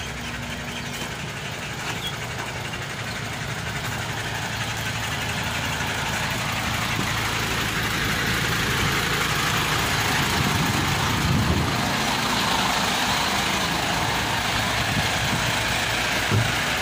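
An engine or motor running steadily with a low hum, growing louder over the first half and then holding steady.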